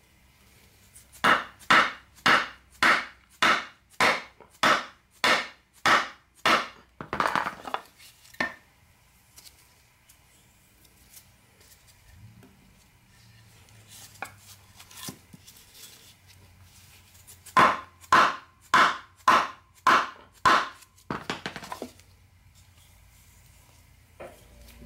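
Hammer blows on a block of wood, driving a new rear main seal into the Subaru EA82 engine block: about a dozen evenly paced taps, then after a pause about eight more.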